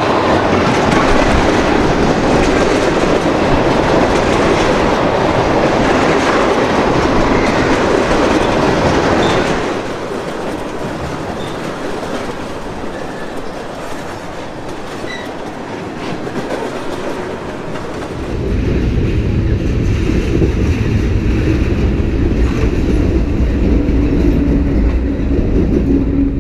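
Freight train of tank cars rolling past, steel wheels clicking over the rail joints. The sound drops somewhat about ten seconds in, and a heavier low rumble comes in around eighteen seconds.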